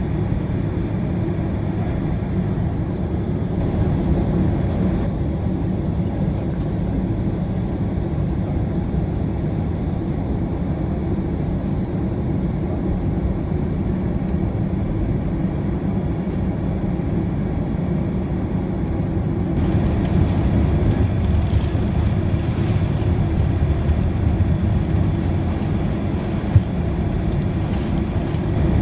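Steady low rumble inside a Boeing 767-300ER's passenger cabin, with light rattles. The rumble grows a little louder and rougher about two-thirds of the way through, and there is a single sharp click near the end.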